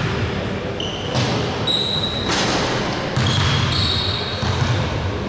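Basketball game sounds on a gym court: a ball bouncing in irregular thuds and sneakers squeaking in short high chirps, several of them between about one and four and a half seconds in.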